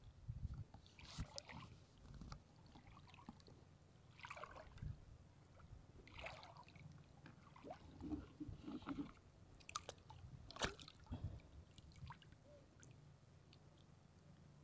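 Faint splashing and sloshing of shallow seawater, a scattered series of short splashes that fade out near the end.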